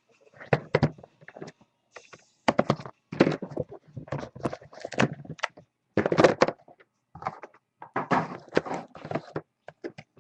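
Trading cards and card packs being handled on a table: irregular knocks, taps and rustling.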